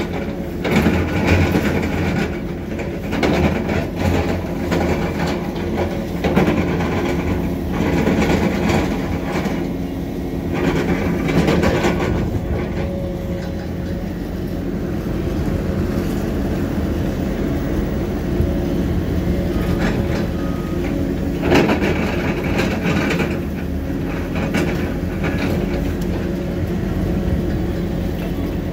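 Heavy construction machinery at work: an engine running steadily under metal clanking and rattling, with the knocks thickest in the first twelve seconds and again about twenty-one seconds in.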